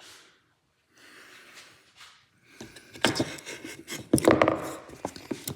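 A person breathing hard, then from about three seconds in a quick run of knocks and scraping as a wooden block is driven against a slotted ABS reluctor ring to press it onto a drive shaft.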